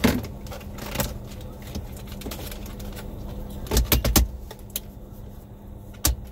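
Wires and plastic dash parts being handled inside a car's dashboard: a few sharp clicks and knocks, with a louder cluster of them about four seconds in. A steady hum from the car's running air conditioning lies underneath.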